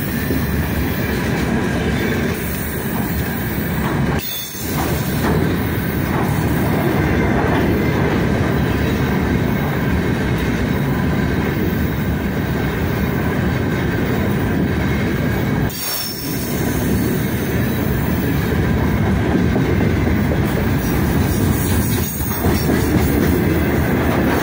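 Freight train's gondola wagons rolling past close by: a steady, loud rumble and clatter of steel wheels on the rails, with a faint thin high tone running over it. The sound dips briefly twice, about four seconds in and again near sixteen seconds.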